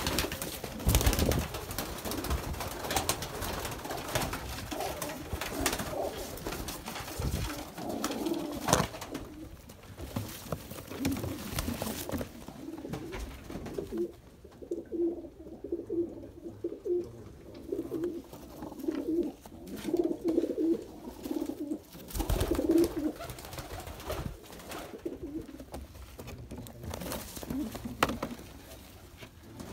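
Domestic pigeons cooing, a low pulsing call repeated many times. A few sharp knocks and rustles come in between the calls, about a second in, near the middle and again later on.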